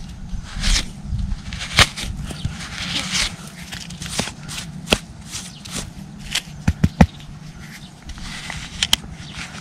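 Fingers scraping and digging through dry, crumbly soil, with irregular crunches and sharp clicks as dirt is scratched away around a large snail.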